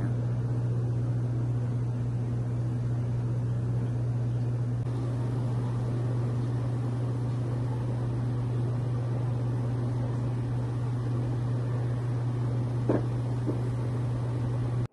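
Steady low machine hum with an even hiss over it, unchanging; a couple of faint clicks about thirteen seconds in.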